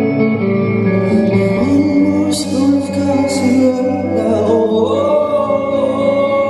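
Live band performance with a male lead singer, the vocal holding long notes over the band.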